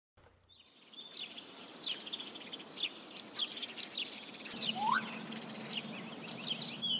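Birdsong ambience of many quick high chirps, with a rising whistled note near the end. A low steady hum joins about two-thirds of the way through.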